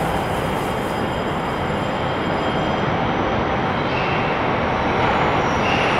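Train pulling slowly into the station: a steady rumble that grows a little louder as it comes closer, with a faint high squeal near the end.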